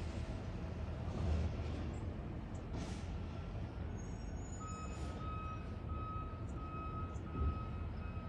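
Garbage truck engine running with a steady low rumble, two short air-brake hisses in the first three seconds, then the truck's reversing alarm beeping repeatedly from about halfway through.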